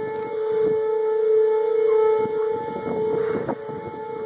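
Outdoor tornado warning siren sounding one steady tone, swelling a little louder in the middle and then easing off.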